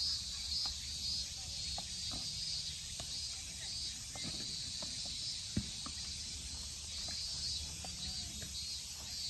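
Insects chirping in a steady high chorus over a low outdoor rumble. A few light clicks and one sharp knock just past halfway.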